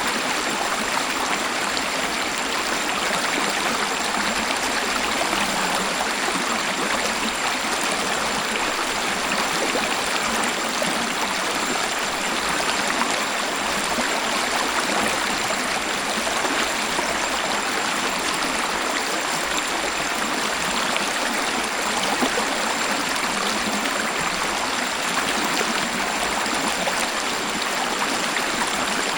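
Waterfall: a steady, even rush of falling and flowing water with little deep rumble.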